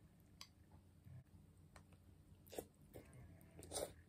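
Quiet eating noises: a few short mouth sounds as noodles are slurped and chewed, the loudest near the end.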